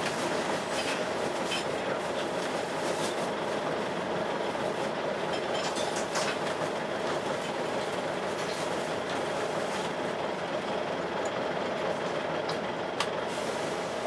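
Volvo B10BLE single-deck bus heard from inside while driving: a steady hoovering whoosh from the engine's cooling fan over the engine and road noise. Light rattles and clicks from the interior fittings come through, with one sharper click near the end.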